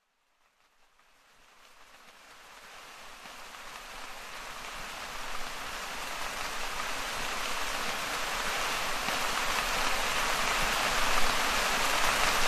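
Steady rain falling, an even patter and hiss that fades in from silence about a second and a half in and grows gradually louder.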